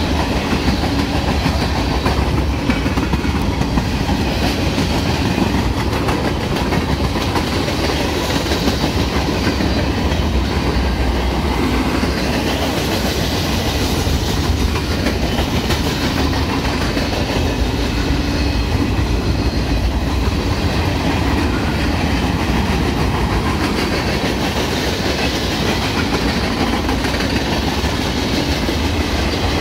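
Freight train cars (covered hoppers and boxcars) rolling past on the near track, a steady rumble of steel wheels on rail.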